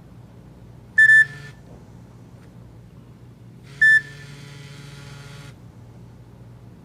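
Two short electronic beeps from a Nokia E90's loudspeaker, about three seconds apart, each followed by a brief faint hiss from the speaker.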